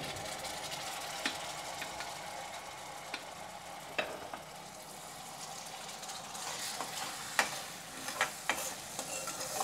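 Ginger-garlic and ground-spice masala sizzling in hot peanut oil in a metal kadhai, with stock just ladled in. A steel spoon stirs it, clicking against the pan now and then, more often in the second half.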